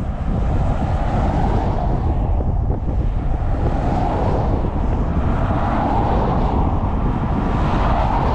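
Strong wind buffeting the microphone: a loud, steady, gusty rumble with a hiss over it.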